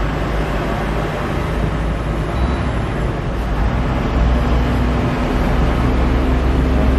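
Steady low rumble and hiss of background noise, with a faint hum joining about four seconds in.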